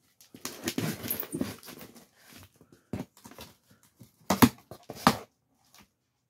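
Hands scraping and rubbing on the taped seam of a cardboard box, followed by a few sharp clicks and knocks, the loudest a little after four and five seconds in.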